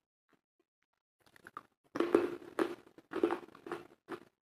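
A person chewing crunchy food close to the microphone: a few faint clicks, then irregular crunching chews starting about two seconds in, roughly two a second.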